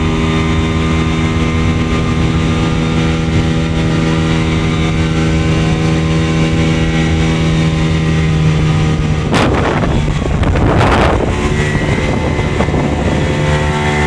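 Jet ski engine running at a steady speed on the water, with a short rush of spray or wind noise about nine seconds in and a longer one about a second later.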